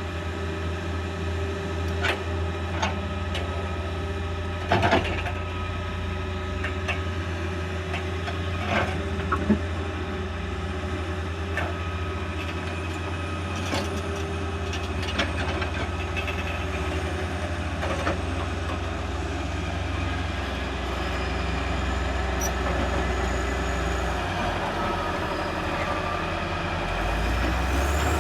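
Truck engine running steadily with a low hum, with scattered short knocks and rattles over it.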